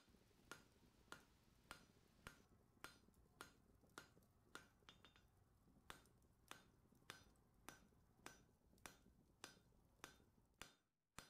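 Near silence with faint, sharp clicks at an even pace, a little under two a second.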